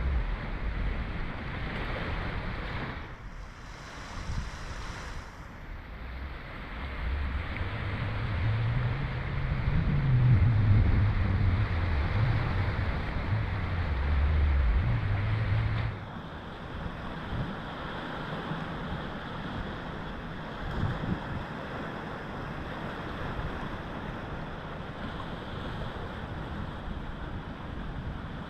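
Sea surf washing on the rocky shore, with wind buffeting the microphone in an uneven low rumble through the middle. The sound changes abruptly about sixteen seconds in and settles to a steadier wash of surf.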